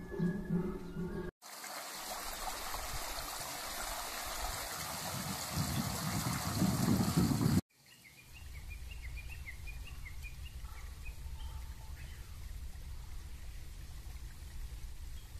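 Guitar music for about a second, then a steady rush of running water like a small stream for about six seconds. After an abrupt cut, a bird gives a quick run of short high chirps over a low rumble.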